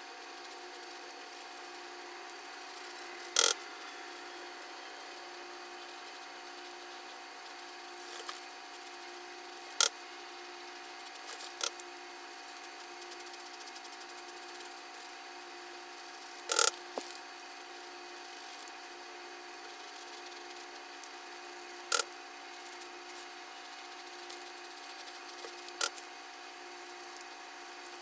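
A steady hum with several held tones, broken by sharp clicks or knocks about every six seconds, five in all.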